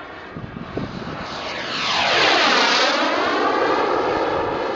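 Radio-controlled Skymaster Hawk model jet making a fast low pass, its turbine whine swelling to its loudest about two seconds in, with a sweeping, falling tone as it goes by.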